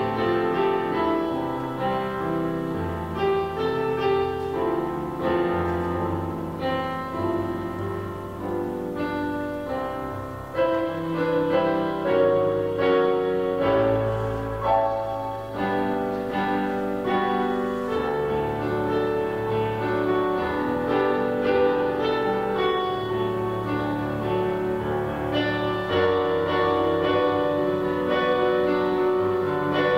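Piano playing a slow piece of held chords over long low bass notes.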